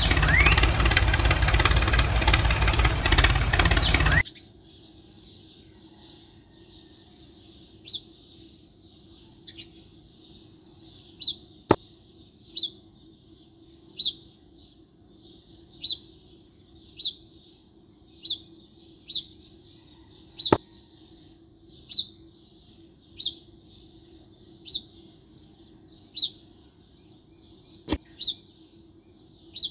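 A small engine running loudly, which cuts off abruptly about four seconds in. After that a bird gives a short chirp about once every second or so over a faint steady hum, with a few sharp clicks.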